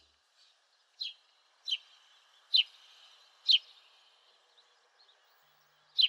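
House sparrow calling: a string of short, sharp chirps, roughly a second apart, over a faint hiss.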